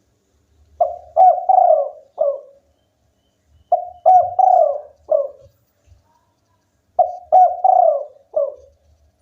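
Spotted dove cooing. It gives three of its repeated phrases of four or five low, rolling coo notes, each about a second and a half long, with short pauses between them.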